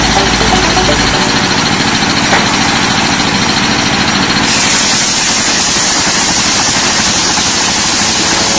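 Engine of wood-cutting machinery running loudly and steadily, its high hiss growing harsher about four and a half seconds in.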